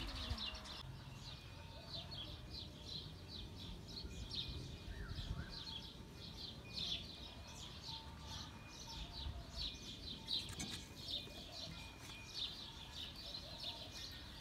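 Small birds chirping in quick, repeated high calls, with a few soft clicks about ten seconds in.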